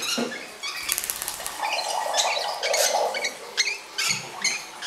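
Lovebird chicks giving a string of short, high, squeaky begging calls while being hand-fed formula from a syringe.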